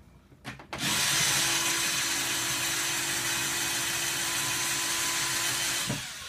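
Small cordless electric screwdriver running steadily at one speed for about five seconds, working at a stubborn old screw, after two short clicks just before it starts.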